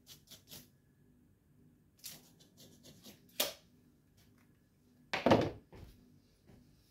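Workshop handling noises: a few light clicks and scrapes, then about five seconds in a loud knock as a tape measure and marker pen are set down on the wooden workbench.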